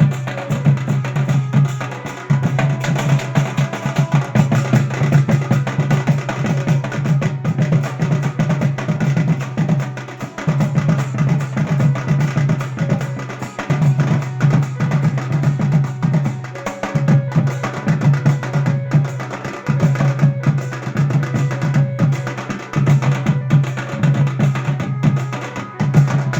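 Bawal band music: drums keep a steady beat over a deep bass line that comes in repeated phrases, with a faint melody above.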